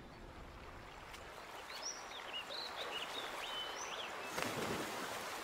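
Shallow creek water running over rocks, with a bird chirping several times in the middle and a short louder splash of water near the end.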